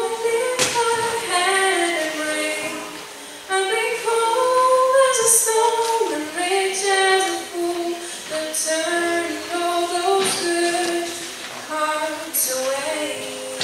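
A woman singing a slow melody of long, held notes into a microphone.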